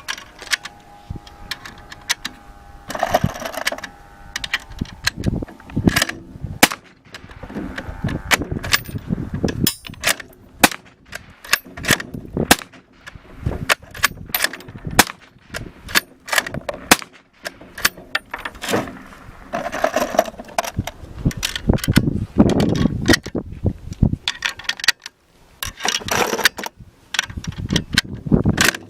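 Many gunshots from a firearm fitted with a TE-Titan suppressor, fired in quick, irregular strings, sometimes several shots a second.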